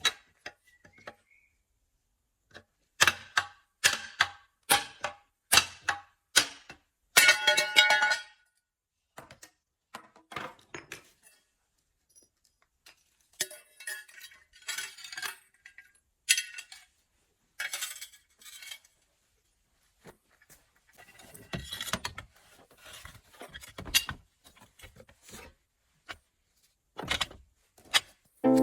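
Metal tools knocking and clinking together as they are handled and packed, a string of sharp knocks and then a ringing metallic clatter about seven seconds in, with scattered clanks after.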